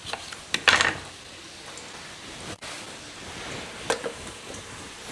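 A few light knocks and clinks of kitchenware over a faint steady hiss: a short clatter about a second in, and two quick knocks near the end.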